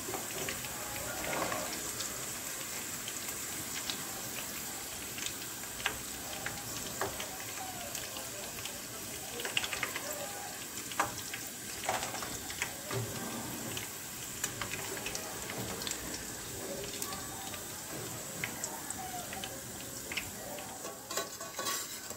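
Potato fries deep-frying in a pan of hot oil, sizzling steadily, with scattered clinks and scrapes of a metal slotted skimmer against the pan as the fries are lifted out.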